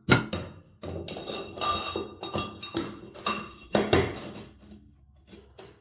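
Cut porcelain floor tiles being set down and shifted by hand on a bare floor during a dry fit around pipes: a string of hard knocks and clinks with a short ring, thinning out and fading near the end.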